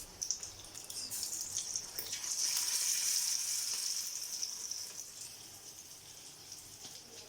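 Marinated fish pieces sizzling in hot deep-frying oil. The hiss swells about two seconds in, then gradually dies down.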